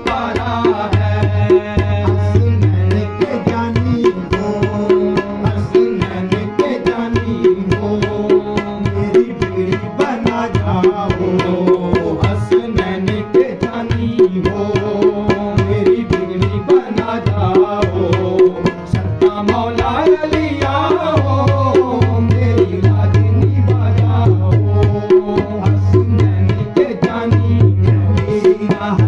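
Live Sufi devotional song (a manqabat, qawwali style) sung by several men, accompanied by a Bina harmonium and a tabla played in a steady, busy rhythm.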